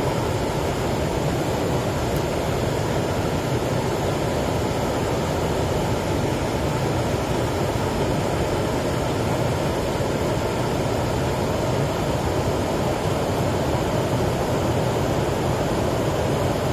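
Steady rush of a stream swollen by floodwater after heavy rain, an even noise with no breaks.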